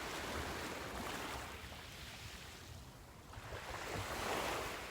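Sea surf washing onto the beach: one wash fades away over the first few seconds, then another wave swells up near the end.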